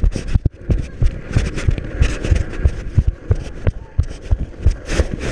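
Handling noise on a handheld GoPro: rapid, irregular thumps and knocks, several a second, as the camera is jostled.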